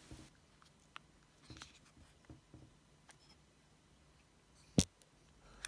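Faint handling noise of a Shimano Ultegra ST-R8070 Di2 lever turned in the fingers: light ticks and rubbing of its plastic body and rubber hood, with one sharp click near the end.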